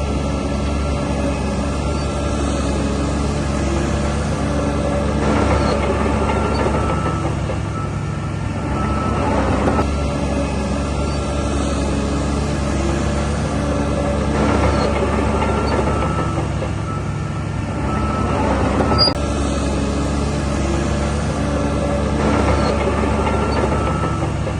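DH17 C2 LGP bulldozer's diesel engine running steadily while the machine works soil, with a louder noisy swell every four seconds or so.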